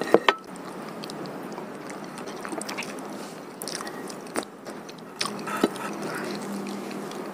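Close-up, wet chewing of a mouthful of pecel sayur (vegetables in peanut sauce). Sharp mouth clicks and smacks come a few times, a cluster right at the start and more around the middle.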